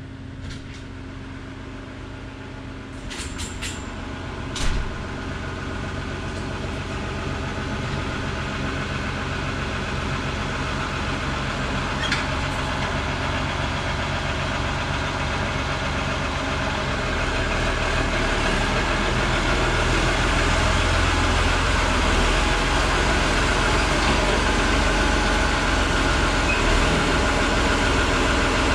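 Oliver 1950-T tractor engine running steadily and growing louder as the tractor pulls up and drives into the shop, loudest over the last ten seconds. A few sharp clicks and a knock come about three to five seconds in.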